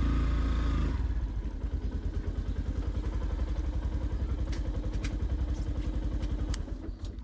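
Yamaha FZ-X's single-cylinder engine running at low speed, easing off after about a second to a steady, evenly pulsing idle as the bike pulls in to park.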